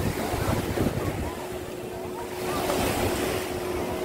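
Surf washing onto the beach with wind buffeting the microphone, and a faint steady engine hum from a watercraft through the middle.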